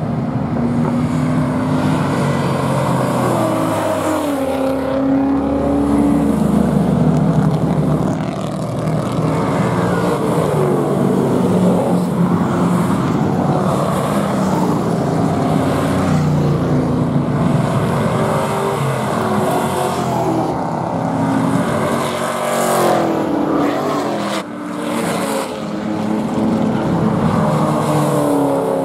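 Several cars' engines accelerating down a race-track straight and passing by. Their notes climb through the gears and drop back at each shift, with more than one car heard at once. A silver 1980s sedan passes close near the end.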